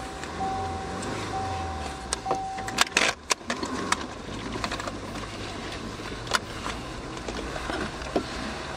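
A 1999 Subaru Forester's engine running fast from inside the cabin, held up near 2000 rpm because it will no longer idle below that after being drowned in a water hole. A repeating electronic warning beep sounds for the first few seconds, then a few sharp knocks come about three seconds in as the car moves off over the rough trail.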